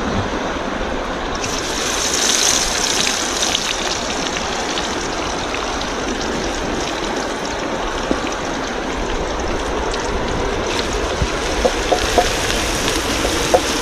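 Steady rushing of a river flowing over rocks, with a few light taps near the end.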